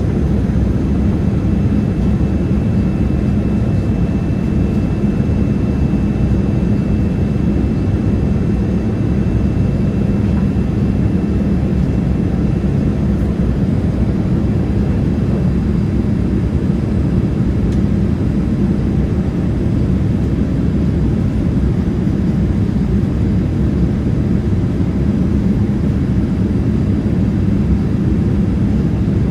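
Steady cabin noise of a Boeing 787-8 airliner in flight: an even low roar of jet engines and airflow, with a faint high steady tone in the first several seconds.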